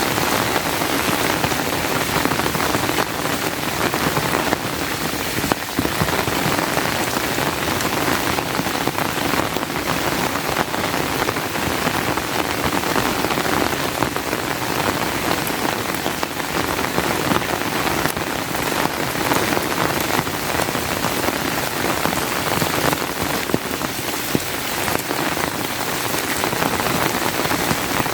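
Steady rain falling, an even hiss of rain with individual drops ticking through it.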